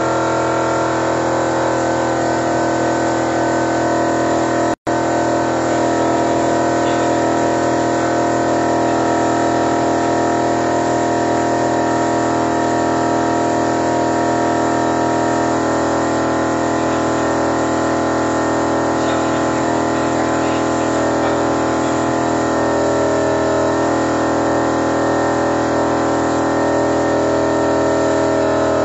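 Toyota Innova engine running steadily, with the steady hiss of a compressed-air spray gun feeding carbon cleaner into it during an engine carbon clean. The sound drops out for an instant about five seconds in.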